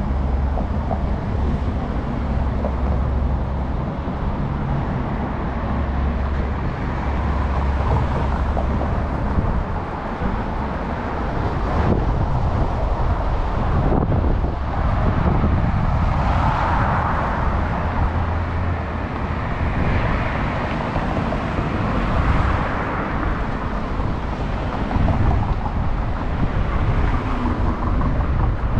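City street traffic: cars passing by, a low steady engine hum that fades after about ten seconds, and a couple of louder passes later on.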